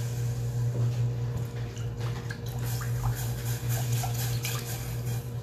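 Milk pouring from a carton into a stainless-steel saucepan, splashing irregularly into the milk and stopping near the end. A steady low hum runs underneath throughout.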